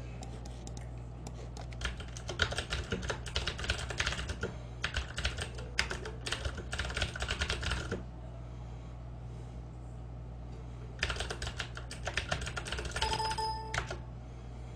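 Computer keyboard typing in quick runs of key clicks, pausing for a few seconds midway, over a low steady hum. Near the end comes a short electronic tone.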